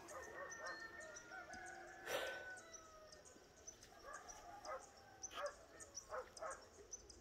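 Rooster crowing faintly: one long call over the first two seconds or so, then a few shorter calls later on. A light high chirping runs underneath.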